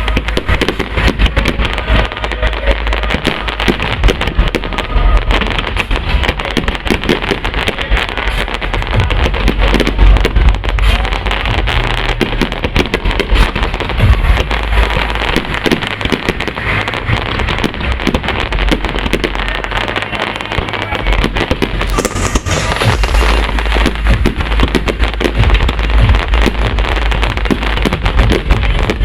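Aerial fireworks going off in a dense, continuous barrage of bangs, deep booms and crackling. The booms ease a little about two-thirds of the way through, then build again.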